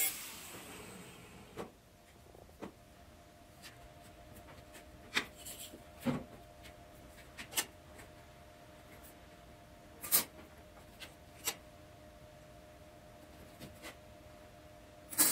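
An angle grinder winds down in the first second or so. Then come scattered short clicks and knocks as steel parts are handled and set on a steel welding table, over a faint steady hum of shop equipment.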